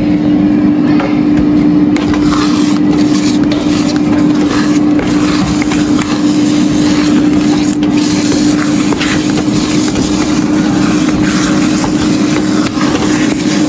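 A steady, loud machine hum, with a wooden spatula stirring and scraping scrambled eggs around a pan.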